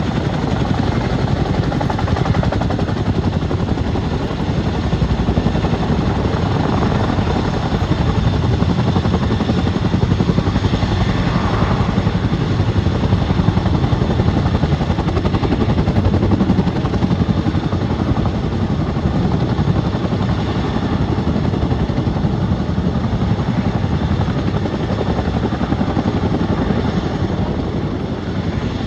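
Chinook tandem-rotor helicopter in flight, its rotors beating and its turbines running loud and steady.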